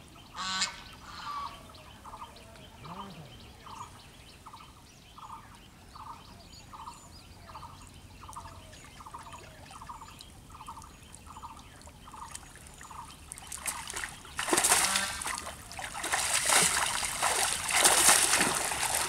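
A cast net being drawn in through shallow pond water, then hauled up out of it with loud splashing and sloshing from about two-thirds of the way through. Before that the water only trickles softly, and a bird in the background repeats a short note about once a second.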